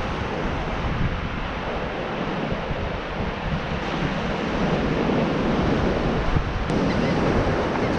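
Wind buffeting the microphone over the steady wash of small surf breaking on the beach.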